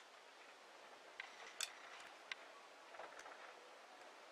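A few faint, irregular small clicks of beads and a beading needle being handled while stitching, over near-silent room tone.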